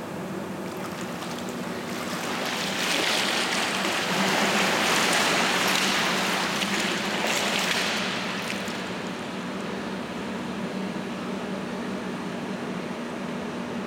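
Water splashing and streaming off a person climbing out of a pool onto the tile deck. It builds from about two seconds in and dies away after about eight seconds, over a steady low hum.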